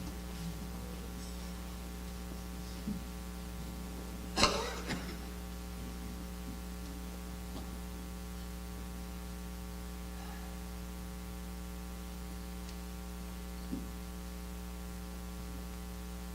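Steady electrical mains hum, with a few faint ticks and one sharp knock about four seconds in.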